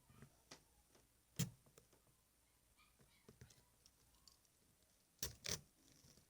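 A kitchen knife stabbed into a raw carrot as a foley stabbing sound: one sharp hit about a second and a half in, then two quick hits close together near the end, with small handling clicks between.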